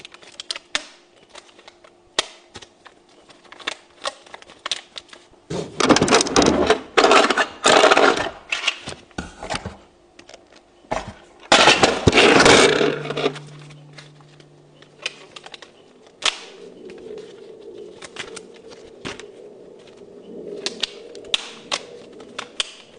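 Paper euro banknotes handled: sharp flicks and snaps as the notes are counted, with two loud stretches of crumpling and crinkling, the first from about six to ten seconds in, the second shorter at about twelve seconds.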